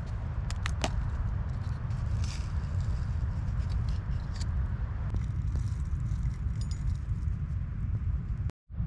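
Eucalyptus-wood fire crackling, with scattered sharp pops over a steady low rumble. The sound cuts out for a moment near the end.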